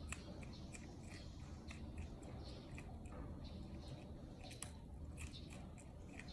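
A prairie dog chewing a piece of carrot held in its paws: small, irregular crunches, a few a second, over a faint low hum.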